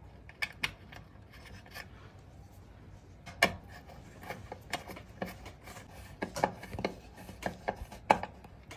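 Irregular small metal clicks and scrapes as the drain screw is turned back into an industrial sewing machine's oil pan. The taps come sparsely at first and more often from about a third of the way in.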